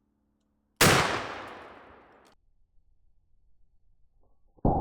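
A single 12-gauge shotgun slug fired, one sharp blast about a second in whose report dies away over about a second and a half. Near the end an abrupt rush of steady noise starts.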